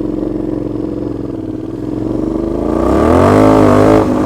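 Aprilia Shiver 750's V-twin engine running loud through a leaking, near-open exhaust, then revving up about three seconds in, holding briefly and dropping back near the end. The exhaust noise comes from play between the silencer and the catalytic converter that the rider cannot pin down.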